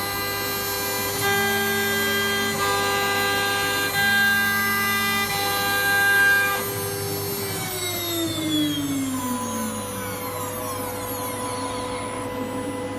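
6012 CNC router running, a steady machine whine with several tones that switch in steps every second or so over a constant low hum. About seven seconds in the whine falls steadily in pitch, like a spindle winding down, then settles into steady tones again.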